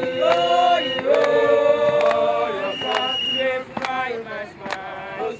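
A group of protesters singing together in unaccompanied chorus, long held notes, with sharp beats about once a second cutting through the song.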